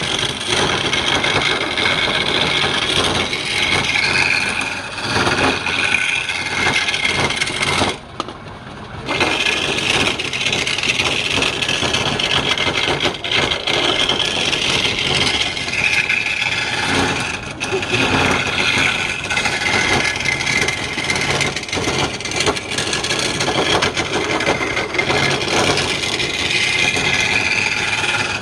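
Wood lathe running with a tool working against the spinning wood: a steady, scraping cutting noise that breaks off for about a second around a third of the way in, then resumes.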